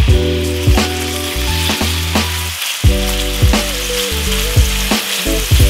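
Marinated chicken pieces sizzling as they fry in hot rapeseed oil in a stainless steel pan, turned now and then with a spatula. Background music with a regular beat plays over it.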